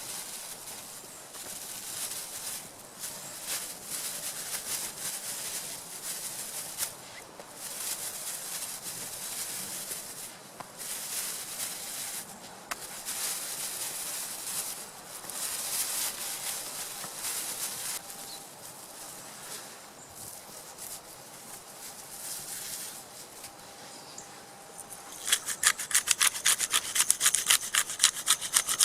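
Uneven rasping scrapes, then, near the end, fast, louder rhythmic strokes of a hand saw cutting wood, several strokes a second.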